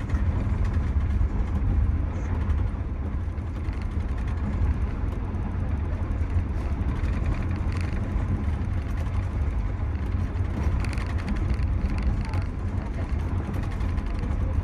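Steady low rumble of a passenger train coach running at speed, its wheels on the rails heard from inside the car.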